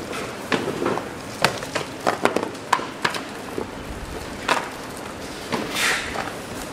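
Irregular clicks and light knocks of cardboard boxes, lids, paper inserts and cables being handled and set down at a packing bench, with a short papery swish about six seconds in.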